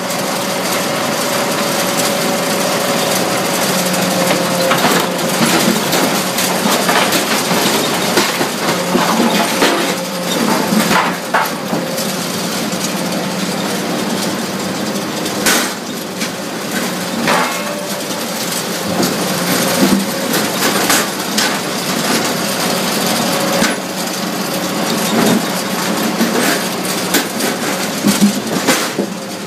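Mobile Cambio 45 debarker running steadily with a constant machine hum, broken by irregular knocks and clatter of wood.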